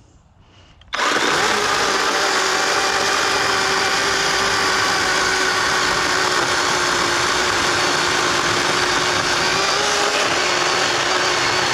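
Kobalt cordless electric chainsaw starting suddenly about a second in and then running steadily at full speed with a high whine, cutting into resin-rich standing pine fatwood.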